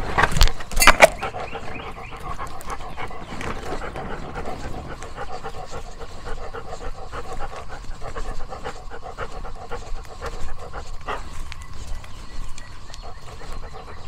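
A dog panting rapidly and steadily, with a few sharp knocks in the first second.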